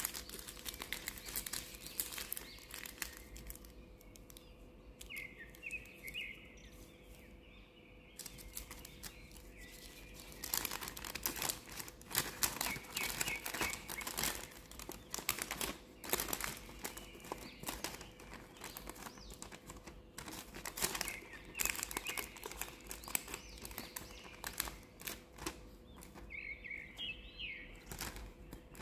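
Sheet of sandwich wrapping paper rustling and crinkling as it is folded, creased and opened out by hand, with clusters of sharp crackles that are densest in the middle.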